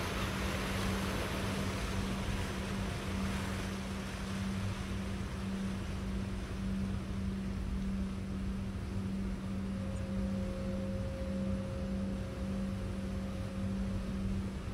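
A ferry's engines droning steadily, a low hum with a slight pulse over a rumble, with a hiss of wind and water that eases after a few seconds. A faint steady higher tone joins from about ten seconds in until near the end.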